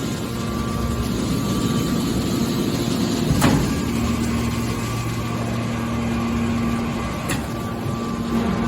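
Hydraulic metal baler running: a steady machine hum from its power unit, broken by a sharp metallic knock about three and a half seconds in and a lighter one near the end.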